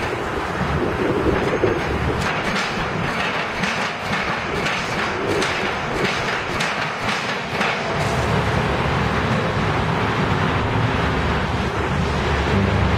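SoilTek S60 hydraulic piling rig at work: a rapid, irregular clatter of metal knocks for about eight seconds, then the rig's machinery running steadily.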